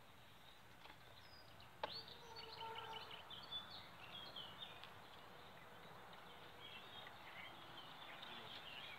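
Faint birdsong over quiet outdoor background noise, with one sharp click about two seconds in.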